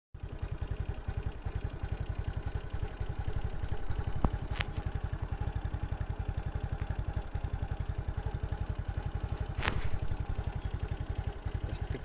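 An engine running steadily at idle, a fast, even chugging of about nine beats a second. Two brief hissing noises come about four and a half and nine and a half seconds in.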